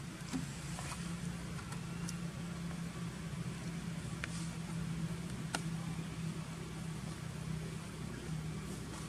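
Steady low hum of a running engine, with a few faint sharp ticks and snaps over it.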